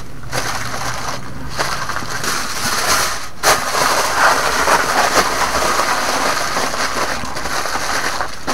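Beef steak sizzling on a hot barbecue grill, a dense steady crackle of searing fat and juices, with one sharp knock about three and a half seconds in.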